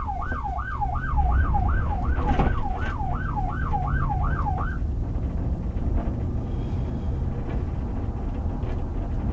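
Police car's electronic siren on a fast yelp, its pitch sweeping up and down about three times a second, over the patrol car's engine and road noise as heard from inside the car. The siren cuts off about four and a half seconds in, leaving only the steady engine and road rumble.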